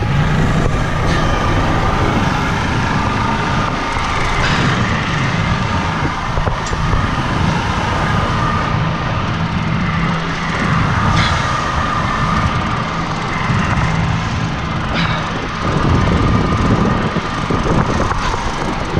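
Boat engine running under way, with water rushing along the hull and wind on the microphone. A few sharp knocks come now and then.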